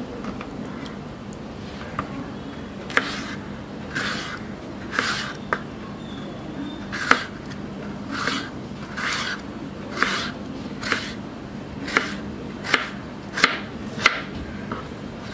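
Kitchen knife chopping chayote (chow chow) on a cutting board: a steady run of separate knife strikes, roughly one or two a second.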